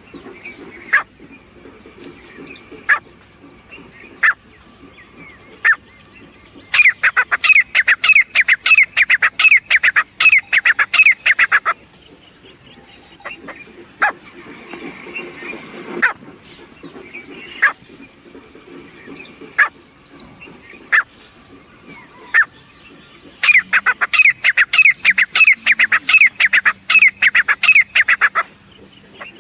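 Grey francolin calling: two long bouts of rapid, loud repeated notes, each about five seconds long, with single sharp notes a second or two apart between them.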